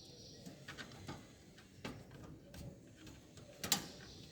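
Faint plastic clicks and light knocks from a CPU fan being lifted out of a desktop computer case and its connector worked loose, with a louder cluster of clicks near the end.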